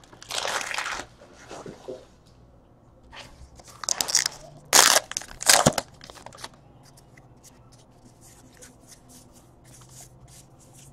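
A trading-card pack wrapper being torn open and crinkled, with several loud tearing bursts in the first half, the strongest about five seconds in. This is followed by a run of faint quick clicks as the cards are flicked through one by one.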